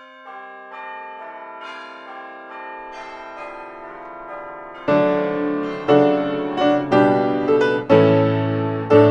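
Piano music: soft, lingering single notes for about five seconds, then louder full chords with bass, struck about once a second.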